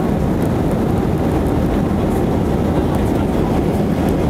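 Airbus A321 jet engines and rushing air, a steady, loud low rumble that holds level throughout.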